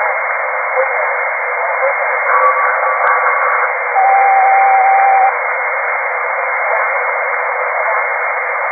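Steady, thin radio-like hiss of cockpit voice recorder audio. About two seconds in a faint tone sounds, with a single click. About four seconds in a steady tone rings for over a second, the loudest thing heard, and a faint low hum joins near six seconds.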